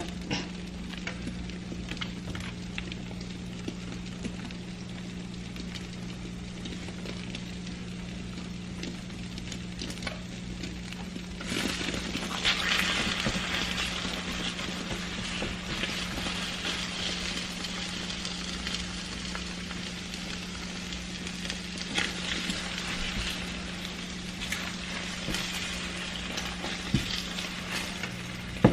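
Eggs and shaved turkey sizzling in a frying pan, a steady hiss that grows louder about a third of the way in, with a few light utensil clicks and a sharp knock at the very end. A low steady hum runs underneath.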